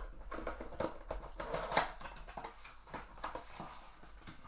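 Hands opening a cardboard trading-card box: scattered rustles and taps, with a louder rustling tear about a second and a half in.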